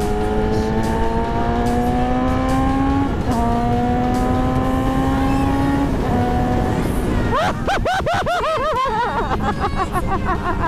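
BMW S1000RR inline-four engine accelerating hard, its note climbing steadily, with clutchless upshifts about three and six seconds in where the pitch drops suddenly. In the last few seconds the note breaks into a run of quick rises and falls.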